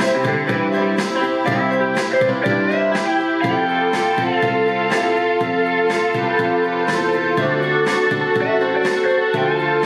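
DOREMiDi SM-10 sound module playing a built-in auto-accompaniment style: a steady drum beat under keyboard and guitar-like chords with a melody line on top.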